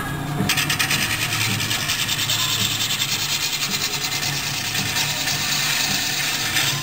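Turning gouge cutting into a large wooden pedestal blank spinning on a lathe: a steady scraping hiss with a fast, even flutter that comes in about half a second in.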